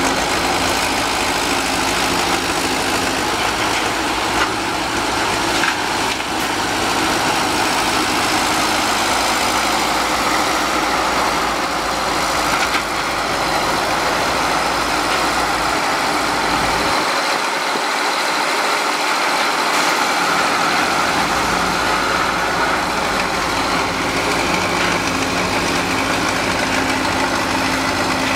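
Engine of a 1959 Menck M60 cable excavator running steadily. Its low rumble drops away for a few seconds past the middle, then returns.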